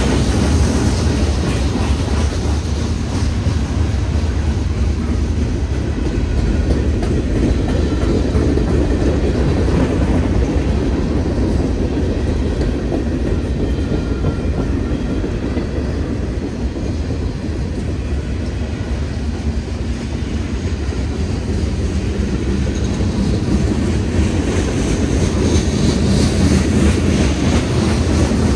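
Freight train cars rolling steadily past, a continuous heavy rumble with the wheels clicking over the rail joints.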